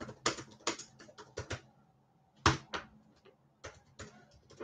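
Typing on a computer keyboard: irregular key clicks, with a louder clack about two and a half seconds in.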